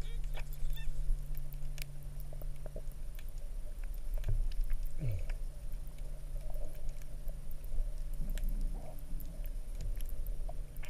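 Underwater recording beneath a boat's hull: a steady low hum with many scattered sharp clicks, and a short falling tone about five seconds in.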